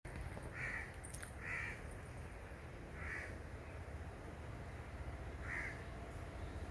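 A bird calling four times, short separate calls spaced unevenly over a few seconds, over a steady low rumble.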